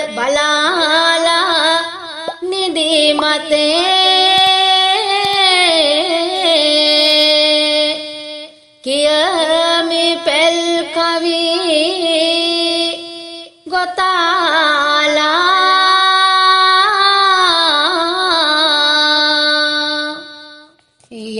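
A single voice chanting a Sinhala folk verse (pal kavi, a paddy-watch hut poem) to a slow, drawn-out melody with wavering, ornamented notes. It comes in three long phrases with short breaks between them.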